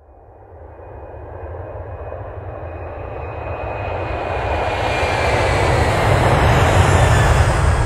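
Steady din of a gym during a basketball game, crowd and court noise over a low rumble, swelling from faint to loud over the first five seconds or so, then holding steady.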